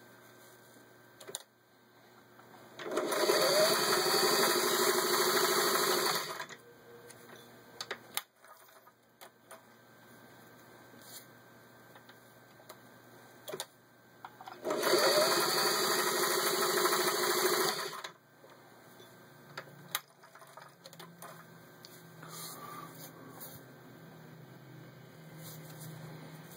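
Singer 403A sewing machine stitching through four layers of vinyl upholstery in two runs of about three and a half seconds each, the motor speeding up at the start of each run. Between the runs there are scattered clicks and handling noises.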